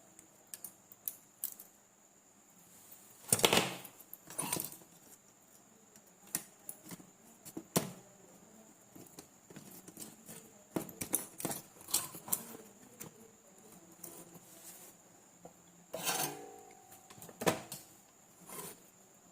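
Scattered clicks, clinks and knocks of small metal parts and hand tools being handled, with louder clatters about three seconds in and again near the end, as parts of a battery charger's heat sink are fitted.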